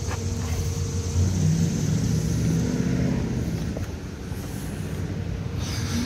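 Steady low background rumble, with a faint low drone that comes and goes in the first few seconds.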